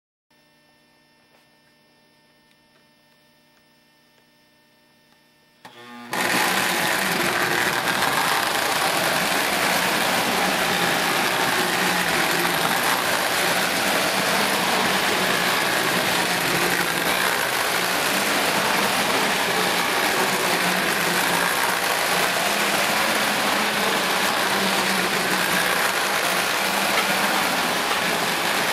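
Faint steady hum, then about six seconds in an electric model train starts up and runs: a loud, steady mechanical running noise from its motor and wheels on the track.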